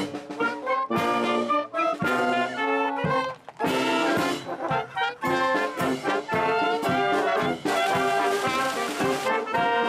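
Brass band music, with trumpets and trombones playing a tune in short, separate notes.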